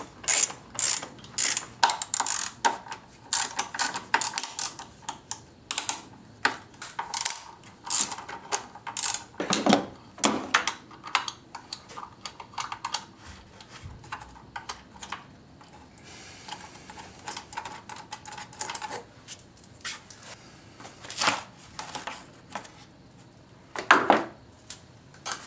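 Socket ratchet clicking in quick runs as the fasteners holding the engine cover are loosened, with a louder knock near the end as the cover comes off.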